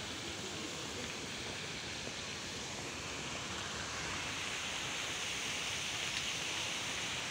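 Steady outdoor background hiss with no distinct events, a little brighter for a few seconds in the middle.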